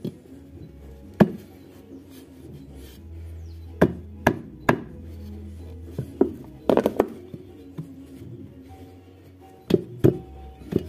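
Hammer blows struck through a piece of old tyre onto the dented edge of a Honda motorcycle alloy rim, to knock the dent flat. About a dozen knocks in uneven groups, the loudest about a second in. Background music plays under them.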